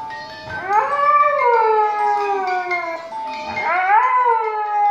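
Siberian husky howling twice: each long howl rises at the start and then slides slowly down in pitch, the second beginning about three and a half seconds in. Music plays underneath.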